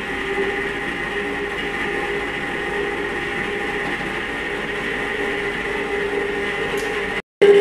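Cuisinart ice cream maker's motor running with a steady hum, turning the paddle in the freezer bowl as the mix goes in. The hum drops out for a moment near the end.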